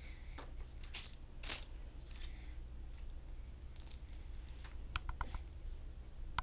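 Strawberries being chewed: scattered wet smacks and clicks of eating, with a quick run of clicks about five seconds in.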